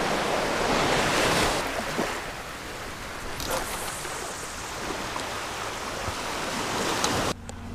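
Ocean surf washing onto a sandy shore: a steady rushing hiss, louder in the first second and a half. Near the end it gives way suddenly to a quieter low hum.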